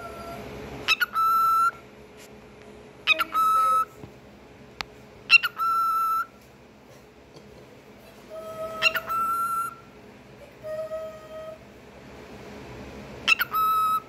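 Cockatiel calling six times, each call a quick two-part chirp running straight into a held whistled note, its mimicked "peek-a-boo". The fifth call is quieter and lower.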